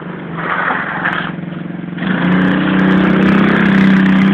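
Small single-cylinder engine of a mini quad bike running, then revving up about two seconds in and holding at higher revs.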